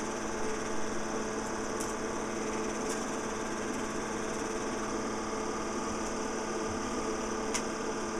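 Home-movie film projector running with a steady mechanical whir, with a few faint clicks along the way, as the end of the reel runs through.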